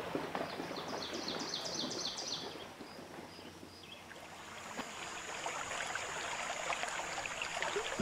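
Running stream water splashing and trickling. About a second in, a bird gives a quick run of short high notes, and around halfway a thin, steady high tone joins in.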